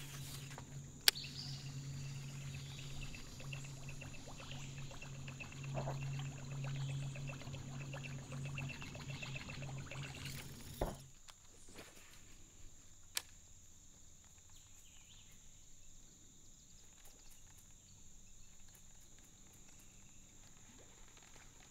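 Insects droning steadily in a high, thin, unbroken tone. Under it a low steady hum runs through the first half and stops abruptly about halfway, and two sharp clicks stand out, one near the start and one a little after the middle.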